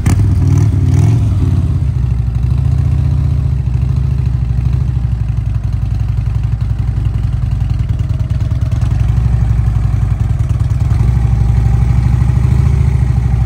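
Motorcycle engine running steadily with a fast, even pulse, cutting in suddenly at the start.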